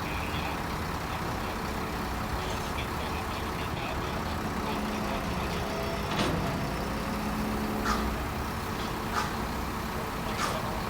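Bulldozer's diesel engine running steadily, with four sharp metallic clanks or squeaks in the second half.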